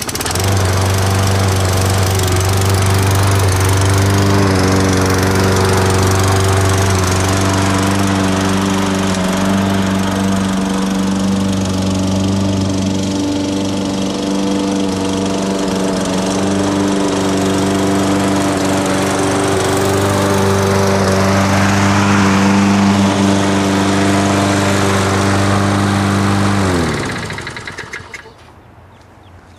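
Toro Recycler walk-behind lawn mower's small single-cylinder engine running steadily during a test mow, after its stripped spark plug hole was repaired with a thread insert. About 27 seconds in, the engine is shut off and spins down to a stop.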